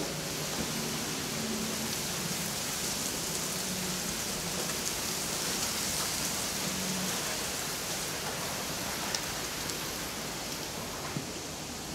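Steady rushing hiss of a lit metal-melting furnace burner running during a brass pour, even throughout with no distinct knocks.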